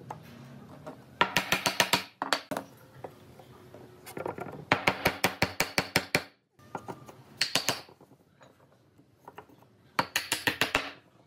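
Rapid light hammer taps on wood, about ten a second, in several short bursts with the longest in the middle, as tenoned wooden posts are knocked down into mortises in a long rail.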